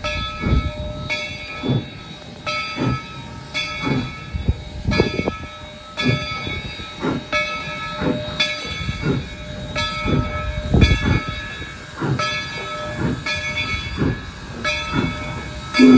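Valley Railroad No. 97 steam locomotive, a 2-8-0, rolling slowly with its bell ringing steadily about twice a second over the hiss of steam. Its steam whistle starts to blow at the very end.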